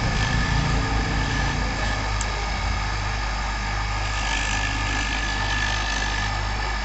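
Electric bench grinder motor running with a steady hum while a black fibre swingarm bush is pressed against its grinding wheel to shorten it to size; a light grinding hiss swells around the middle.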